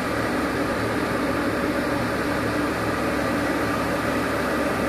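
Travel lift (mobile boat hoist) running steadily, a constant machine drone from its power unit and winches as it lowers a motor yacht into the water.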